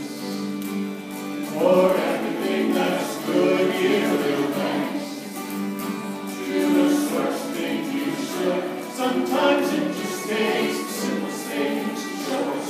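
A folk song played on acoustic guitars and a fiddle, with a group of voices singing.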